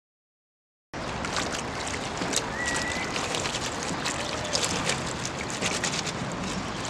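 Silence for about the first second, then water sloshing and splashing with many small clicks as hands stir deflated latex balloons in a bucket of water. A brief squeak about two and a half seconds in.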